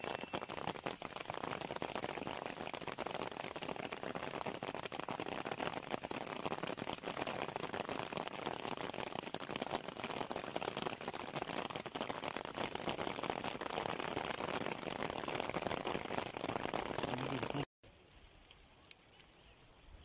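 Steady rain falling, a dense close patter of drops. It cuts off abruptly near the end, leaving a much fainter hiss.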